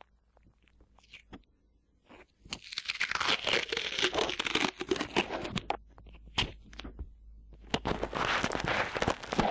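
Sticky tape being peeled and pulled up close, heard as crackly ripping with sticky clicks. After a couple of seconds of faint clicks comes one long peel of about three seconds, and a second peel starts near the end.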